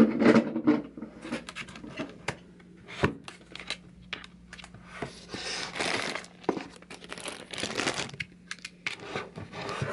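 Close handling noise on a desk: irregular clicks and taps as hands type on a computer keyboard and pick up a small SD card reader, with stretches of rustling about five to six and a half seconds in and again near eight seconds. A faint steady hum underneath.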